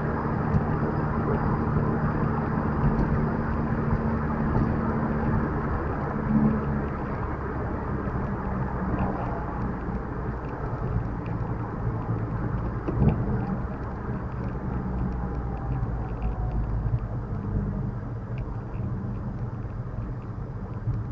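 A car being driven: steady engine hum and road rumble, with the engine note shifting about six seconds in.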